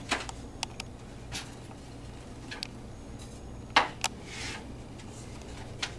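Unfinished wooden slatted table frame being handled and turned over: scattered light knocks and clatters of wood on wood, with two sharper knocks nearly four seconds in. A steady low electrical hum runs underneath.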